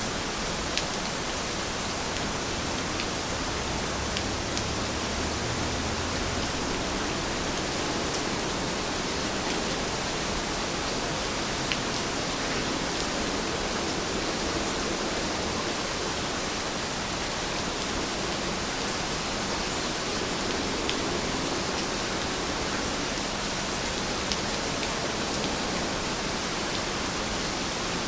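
Steady rain falling, a constant even hiss with scattered sharp drop ticks.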